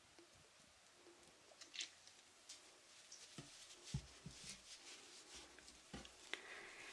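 Faint, scattered soft clicks and light taps from small objects being handled close to the microphone, more of them in the second half.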